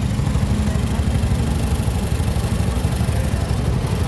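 Motorcycle engine of a Philippine tricycle running steadily with a fast, even low pulse, heard from aboard the tricycle.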